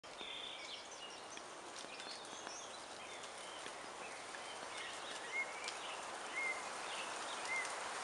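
Wind in pine trees, a steady hiss, with several small birds singing and calling over it: quick chirps and whistled notes, and in the second half a short rising-and-falling note repeated about once a second.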